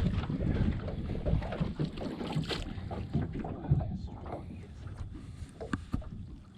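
Wind buffeting the microphone as a low rumble, strongest in the first second or two and then easing, with a few light knocks.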